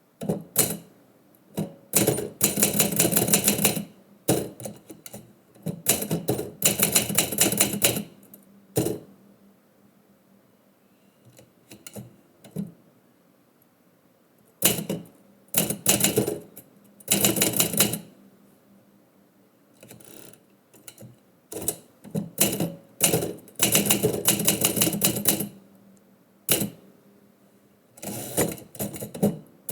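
Typewriter keys striking in quick runs of a second or two at a time, with short pauses between the runs, as a poem is typed out.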